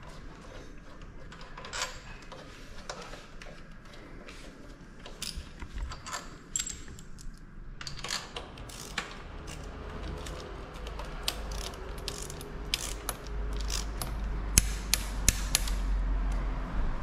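Hand tools and small metal fittings clicking and clinking as a motorcycle's handlebar parts are taken off and fitted, the clicks coming thicker in the second half. A low rumble builds toward the end.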